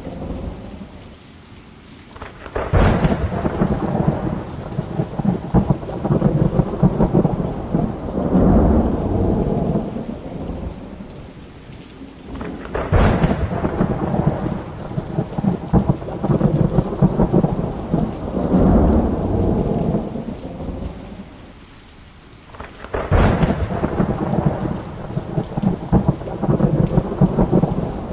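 Thunderstorm with steady rain: thunder cracks sharply three times, each rolling into a long rumble that fades before the next.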